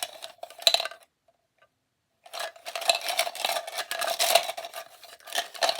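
Numbered balls clattering and rolling around inside a container as they are mixed for the next draw. A short burst, a pause of about a second, then steady rattling from about two seconds in.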